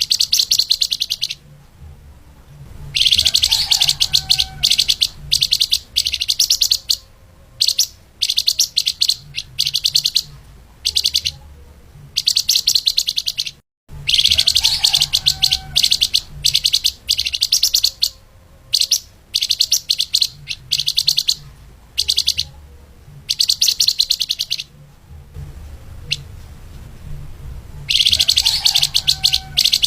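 Flamboyan (lemahan) songbird singing a fast, tightly packed twittering song in bursts of one to two seconds, separated by short pauses. The sound drops out for a split second about 14 seconds in.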